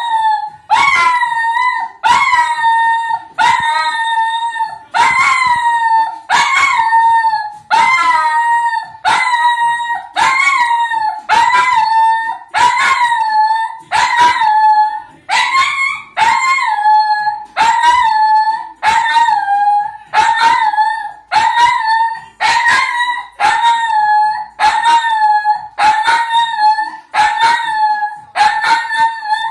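A dog howling along to the television in a long run of short howls, about one a second. Each howl starts with a sharp yelp that rises into a held, steady note.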